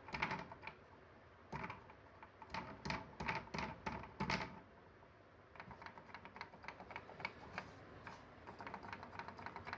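Wooden hopping kangaroo ramp-walker toy walking down a sloped board, its swinging wooden legs clicking against the board in uneven clusters of sharp taps. About halfway in, the taps turn into a steadier, quicker run of lighter clicks, about five a second.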